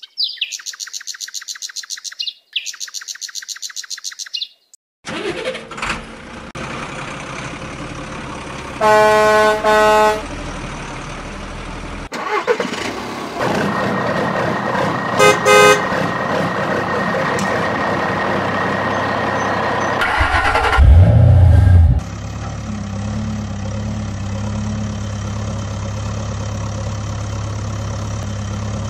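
Toy vehicle sound effects: a fast pulsing electronic tone at the start, a horn sounding twice about nine seconds in and a few short beeps a little later, over the whine of small electric motors. A loud thump follows, then a steady low hum of a simulated engine idling.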